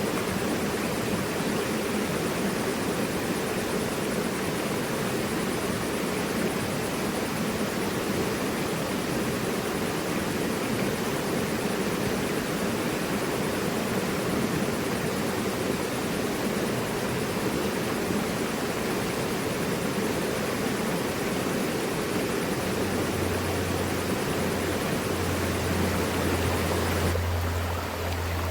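Mountain river rushing steadily over rocks, a dense even water noise. A low steady hum joins it for the last few seconds, and the water's sound changes character just before the end.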